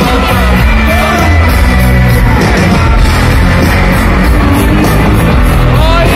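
Live rock band playing loud through a large concert sound system: heavy bass and drums, electric guitars and a male voice singing, with a held, sliding vocal note near the end.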